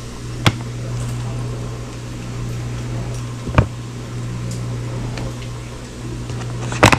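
Steady low hum of a running kitchen appliance, broken by two small clicks, with a plastic bag rustling briefly at the end.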